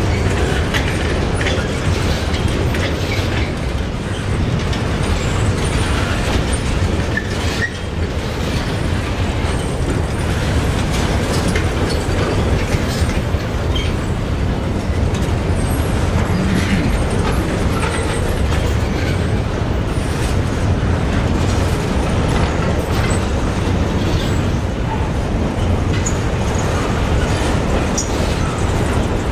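Freight train of containers on flat wagons and covered wagons rolling past close by: a steady rumble and rattle of wheels and wagons, with scattered clicks of wheels over the rail joints.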